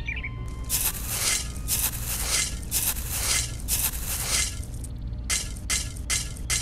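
Crunching, scraping strokes of a miniature shovel digging into a pile of dry, crumbly soil, about two a second, with a short pause about four and a half seconds in before the strokes resume.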